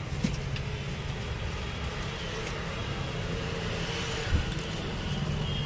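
Steady hum of street traffic, with two dull knocks, one just after the start and one about four seconds in.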